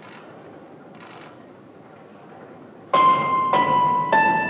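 Quiet ice-rink ambience, then about three seconds in the skater's program music starts over the rink speakers: piano chords, each held and ringing before the next comes in.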